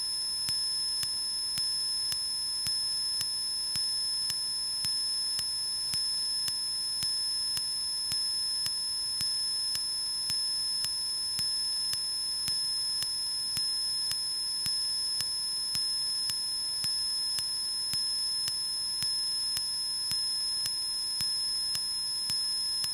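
Steady high-pitched electronic tones on the aircraft's radio/intercom audio line, with a soft pulse about once a second, between radio transmissions. No engine rumble comes through.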